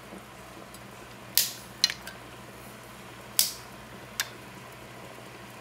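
Dry long macaroni snapped in half by hand: four crisp snaps in two pairs, the first of each pair louder.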